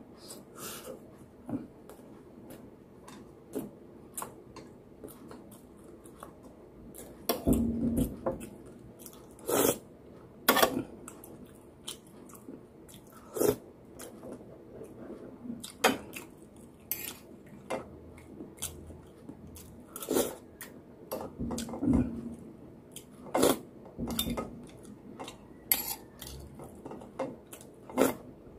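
A person eating beefsteak in sauce with a spoon, close to the microphone: chewing and mouth sounds, with the spoon clicking against the bowl and plate at irregular intervals.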